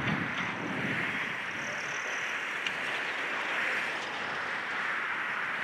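Demolition excavator tearing into a building: steady machine noise with a low crunching rumble of breaking material in the first second and a few sharp clanks of debris.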